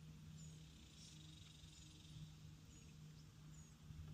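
Near silence of riverside outdoor ambience, with faint high chirps from a small bird, each falling in pitch and repeating about once a second, over a faint insect buzz.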